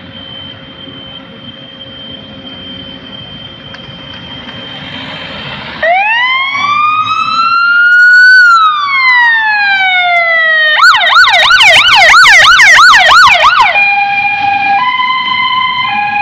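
Fire engine's engine running, then its siren starts about six seconds in with one slow rising and falling wail. About eleven seconds in it switches to a fast yelp of three or four sweeps a second, and near the end to a two-tone hi-lo.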